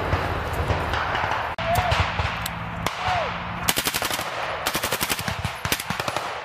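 Small-arms gunfire in the forest: single shots, then rapid bursts of automatic fire about halfway through. The first second and a half is a steady rushing noise of soldiers moving through the woods.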